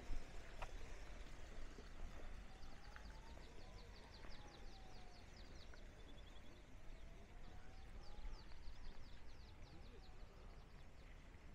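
A small bird singing two fast trills of quick, high, downward-sweeping notes, over faint background hum and a faint tone that slowly falls and rises. A sharp click sounds right at the start.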